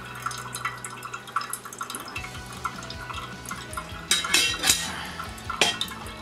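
Hot water poured from a metal pan onto ground coffee in a paper-filtered cone dripper to bloom the grounds, then small drips and ticks. A few louder knocks of metal or crockery come about four seconds in and again near the end.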